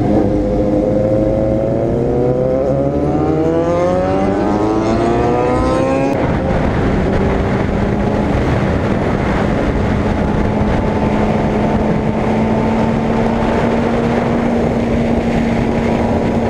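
A Honda CBR600RR's inline-four engine under a riding camera, accelerating with its pitch climbing for about six seconds, then holding a steady note at cruising speed. Heavy wind noise rushes over the microphone throughout.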